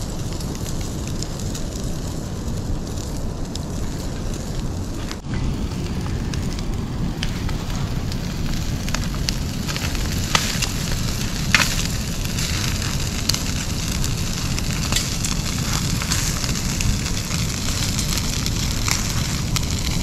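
Open wood fire under a grill grate crackling and popping over a steady low rumble. The pops come more often from about halfway through, with one loud pop a little past the middle.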